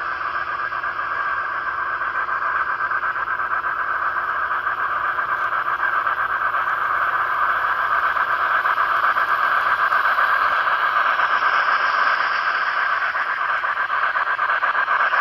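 N-scale model steam locomotive and its freight cars running along the track past the microphone: a steady, high whirring hiss from the running locomotive and the wheels on the rails, growing louder over the first half as the train comes closer.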